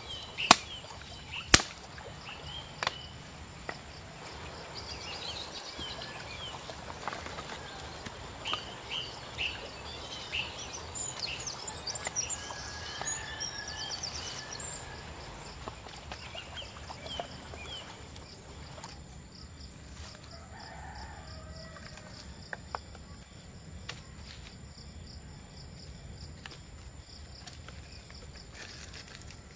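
A few sharp wooden knocks in the first three seconds as sticks are chopped with a machete, then birds chirping and trilling over a steady high insect drone.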